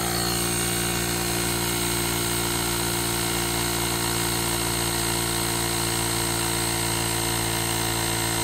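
GOOLOO GT160 portable battery-powered tire inflator's compressor running steadily at an even pitch while pumping air into a basketball through a needle adapter.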